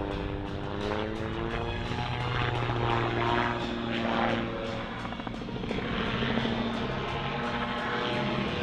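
Calidus autogyro in flight, its pusher-propeller engine running steadily with a fast, even pulsing, with music playing underneath.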